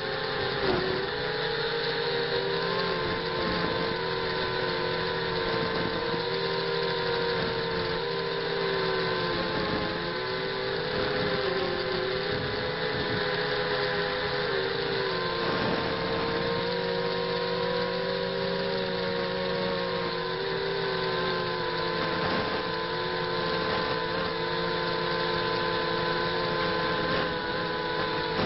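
ZMR 250 quadcopter's brushless motors and propellers whining in flight, heard close up from the craft itself over a steady rush of airflow. The pitch dips briefly and climbs back every few seconds as the throttle is eased and reapplied.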